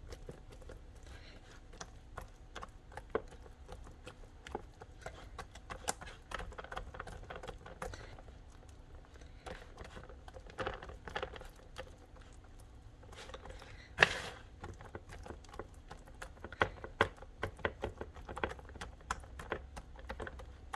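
Hands pressing and pushing soft, oiled pizza dough out across a metal pizza tray: a scatter of small irregular taps and clicks, with one sharper knock about fourteen seconds in.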